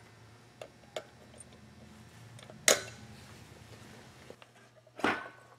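Needle-nose pliers bending the legs of a cotter pin on a wheel axle: small metallic clicks, then one sharp metallic click about two and a half seconds in and another sudden knock near the end, over a faint low hum.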